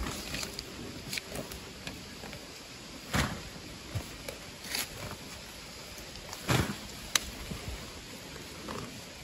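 Shovel digging into soil, with irregular scrapes and dull thuds a second or so apart, the strongest about two-thirds of the way through.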